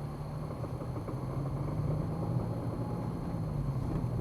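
A steady low hum with a rumbling noise underneath.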